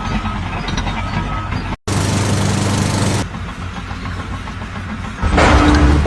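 Engine running, broken by abrupt cuts, with a burst of hissing noise from about two to three seconds in and a louder stretch of engine near the end.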